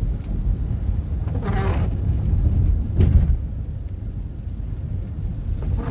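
Inside a moving car on a wet road: a steady low rumble of tyres and engine, with a brief louder sound about a second and a half in and a short thump around three seconds in.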